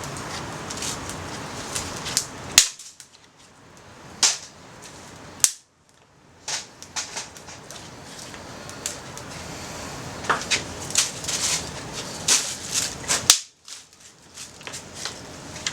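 Wood fire crackling, with frequent sharp pops and snaps from slightly damp firewood, over a steady rushing noise of wind and flame.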